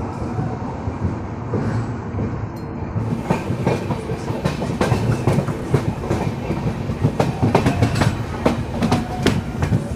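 Passenger train running on the track, heard from inside a sleeper coach: a steady rumble, and from about three seconds in a quick, irregular run of sharp wheel clicks over rail joints.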